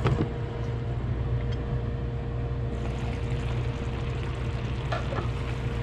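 Oysters in a tomato broth simmering in a stainless pan, bubbling over a steady low hum. A brief click comes near the end.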